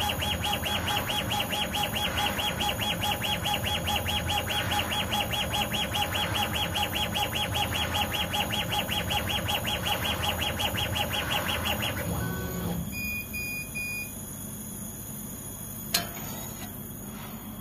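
CO2 laser engraver raster-engraving glass: the head's drive motors shuttle back and forth with a fast, even whirring pulse, about five passes a second, over a steady tone. The motors stop about twelve seconds in. Three short beeps follow, and there is a single sharp click near the end.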